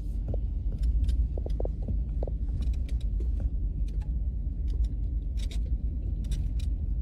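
Low steady rumble of a vehicle driving along a campground road, heard from inside the cabin, with scattered light clicks and rattles.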